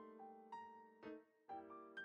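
Quiet piano background music: single notes struck over held chords, with a brief gap about a second and a half in before the next note.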